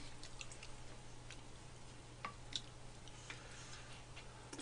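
A handful of faint, scattered clicks of spoons and chopsticks against bowls and soft eating sounds, over a low steady hum.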